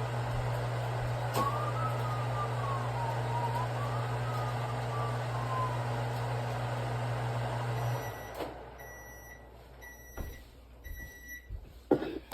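Microwave oven running with a steady hum that cuts off about eight seconds in as the cook cycle ends, followed by about three short electronic beeps signalling that it is done.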